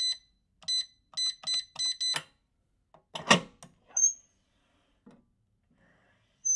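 Hotel-room electronic safe: six short high beeps as its keypad buttons are pressed, then a mechanical clunk about three seconds in as the knob is turned to draw the bolt. The door swings open with a short high squeak around four seconds in, and squeaks again at the very end.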